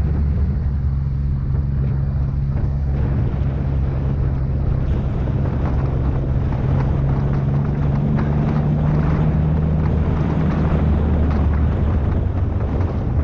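Twin-turbo Nissan 350Z's 3.5-litre V6, through a 3-inch true dual exhaust, running steadily at low revs with an even, unchanging pitch.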